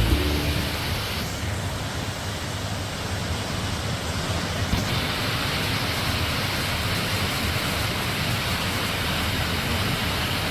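Waterfall with rainy-season swollen flow, a steady, even rush of falling water.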